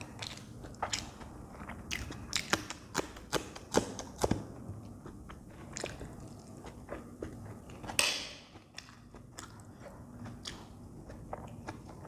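Close-miked eating: sharp crunching bites and wet chewing of spicy Maggi instant noodles and raw green chillies. The crunches come thick and fast in the first four seconds or so. A louder airy sound about eight seconds in fades quickly, followed by softer, sparser chewing.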